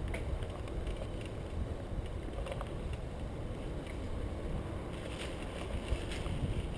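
Mountain bike rolling over a dirt trail, with wind rumbling on the microphone and a few sharp clicks and rattles from the bike, several of them in the last couple of seconds.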